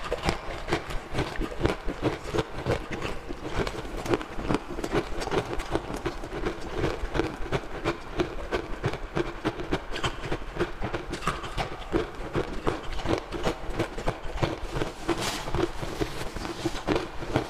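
Crushed green ice being crunched and chewed in the mouth: a rapid, uneven run of crisp crunches and crackles.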